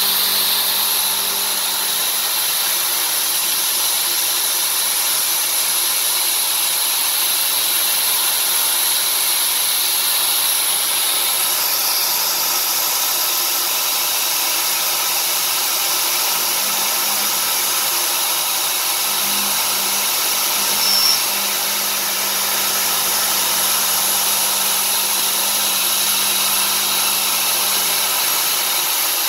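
End mill cutting an aluminium block on a CNC vertical machining center: a steady high-pitched cutting hiss and whine. The high pitch shifts about a third of the way in, and there is a brief squeak about two-thirds through.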